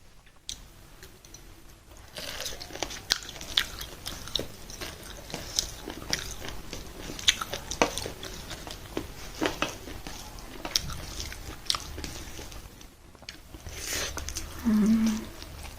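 Close-miked mouth sounds of eating: chewing and biting with many irregular wet clicks and smacks. Near the end there is a short, louder low hum.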